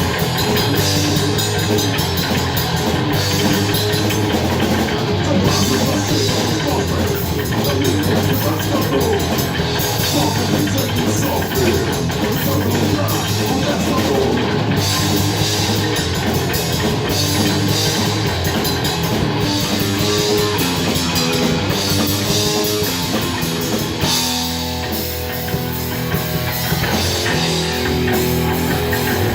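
Recorded grind/noise metal band music: distorted guitar, bass and drums playing dense and loud, thinning briefly a few seconds before the end.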